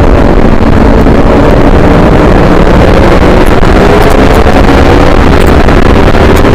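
Yamaha R3's parallel-twin engine running hard at speed, its pitch climbing steadily through the second half as the bike accelerates, under heavy wind rush on the microphone.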